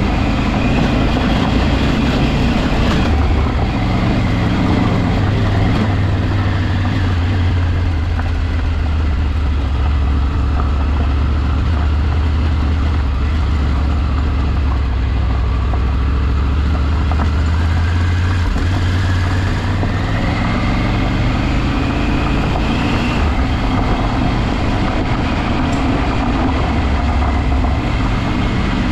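Motor vehicle engine running steadily while driving off-road, its pitch slowly rising and falling with the throttle.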